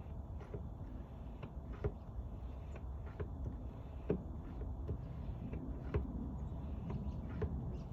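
Hand pump on a jug of tire sealant being worked stroke after stroke, pushing sealant through the open valve stem into the tire. Each stroke gives a short click or knock, about two a second.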